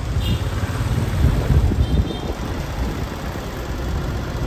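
Street traffic at a crossroads: a motor vehicle engine passing close by, its low rumble loudest about one to two seconds in.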